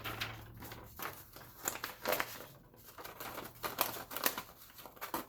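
A sheet of paper rustling and crinkling with irregular small clicks as it is handled and fed into an Oliver typewriter.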